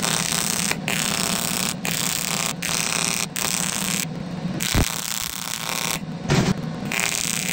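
TIG welding arc on aluminium sheet: a steady, buzzing hiss that breaks off for a moment several times as the arc is stopped and restarted. There are longer breaks at about four and six seconds, and a low thump near five seconds.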